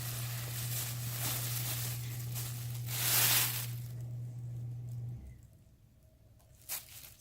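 Rustling from something being handled, with a louder swell about three seconds in, over a steady low hum that cuts off about five seconds in; a single click near the end.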